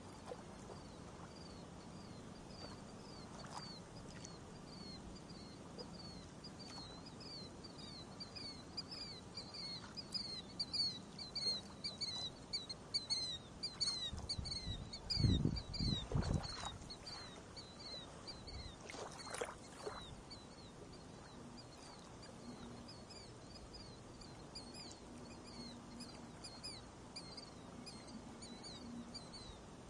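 Birds chirping in quick runs of short, high, falling notes over the faint steady trickle of a shallow stream running over pebbles. A few low rumbling thuds stand out about halfway through.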